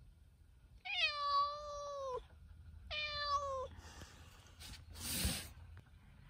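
Tabby cat meowing twice, a longer call and then a shorter one, each rising at the start and then sliding down in pitch, while nosing at a ground squirrel hidden behind stored gear. A short rustle follows about five seconds in.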